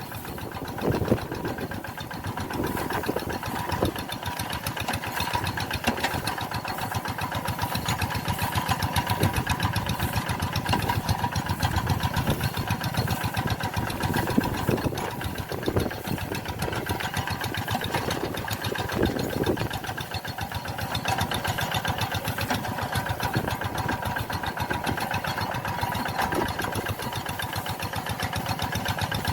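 Tractor engine running steadily with a fast, even firing beat.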